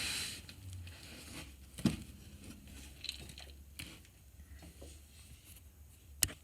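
Handling noise from a tablet being moved about while it records: a brief rustle at the start, then scattered small knocks and rubbing, with a sharper knock just before two seconds in and another near the end. A faint steady low hum sits underneath.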